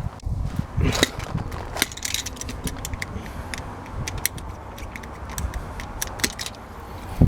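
Stanley knife cutting and picking at the excess sticky rubber of a freshly set tyre-plug repair, making many small irregular clicks and scrapes, densest from about two seconds in, over a low rumble.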